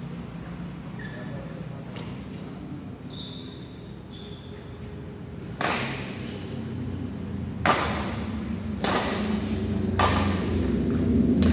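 Badminton rackets striking a shuttlecock in a rally: five sharp hits about one to two seconds apart, starting about halfway through, each echoing in the hall.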